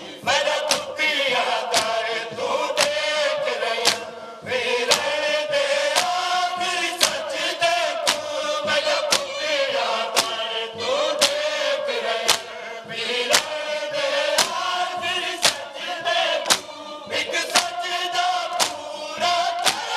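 A group of men chanting a noha, a Shia mourning lament, in chorus, with sharp rhythmic slaps of hands striking chests (matam) about twice a second.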